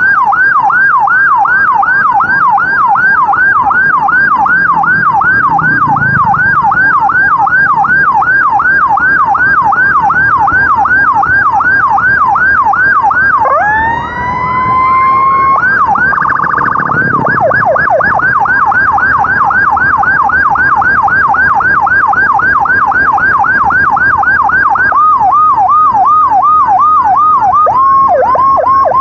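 Electronic emergency siren, loud, running a fast yelp that rises and falls about two and a half times a second. About halfway through it switches briefly to a rising wail and a rapid warble, then returns to the yelp. Near the end it changes to slower sweeps and a short held tone.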